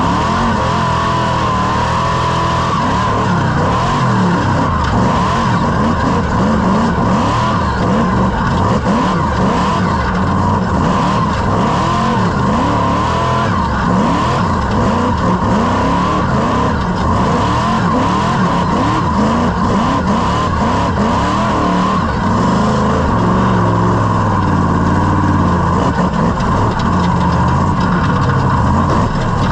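Whipple-supercharged rock bouncer engine revving hard and easing off again and again as the buggy climbs the course, heard from the cockpit, with a steady high whine running under it.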